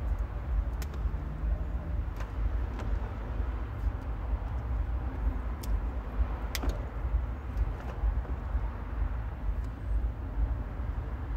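A steady low rumble with a few light clicks and knocks scattered through it, from work on the car's interior while amplifier wiring is pulled through.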